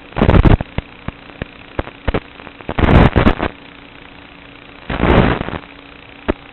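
ImpulseRC Alien 5-inch quadcopter's brushless motors on KISS ESCs oscillating: three loud bursts of noise and several sharp clicks over a steady hum. The oscillation comes from a Cobra 2204 2300KV motor whose bearings have gone bad.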